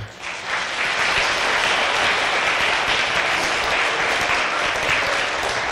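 Audience applauding: dense, steady clapping that builds up within the first second and holds.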